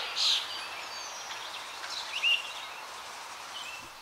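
Outdoor ambience: a steady background hiss with a few short bird chirps, the clearest about two seconds in.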